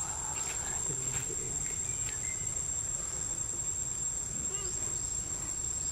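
Insects droning outdoors as one steady, unbroken high-pitched tone, over a low steady rumble.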